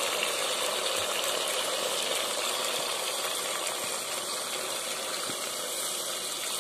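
Water being poured from a pot into a pressure cooker of frying chicken curry, a steady splashing gush over the hiss of the cooking.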